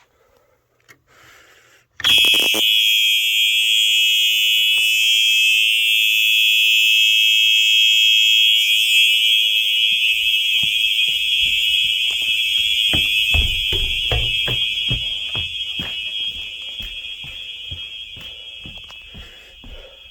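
Simplex 4903 horn strobe sounding a loud, steady, unbroken horn tone that starts abruptly about two seconds in. Over the second half it grows fainter while a run of footstep thumps moves away from it.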